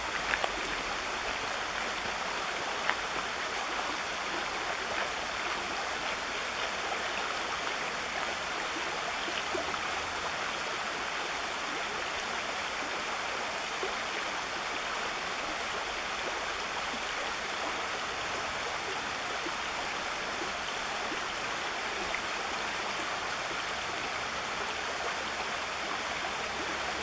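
Shallow stream flowing over stones, a steady even rush of water, with a few brief ticks in the first few seconds.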